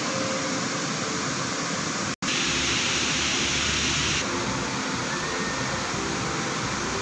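Steady rush of river rapids and waterfall water. There is a brief dropout about two seconds in, and the rush is brighter for the next two seconds.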